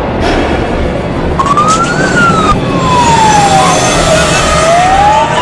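A siren wailing, rising from about a second and a half in, then falling slowly and rising again, over dense loud background noise.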